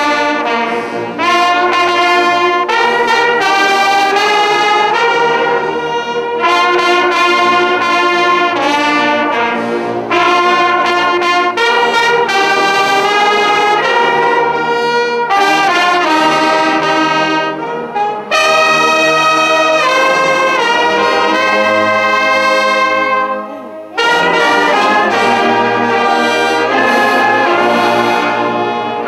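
Large brass band of trumpets and other brass playing together in held chords, phrase by phrase, with short breaks between phrases and a clear pause shortly before the end.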